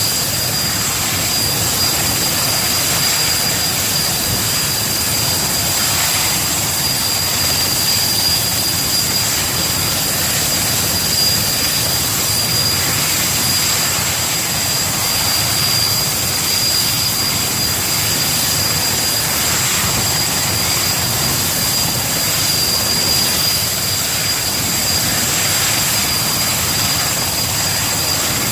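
Erickson S-64 Air-Crane helicopter's twin turboshaft engines running with a steady high-pitched whine over a dense, even rushing noise.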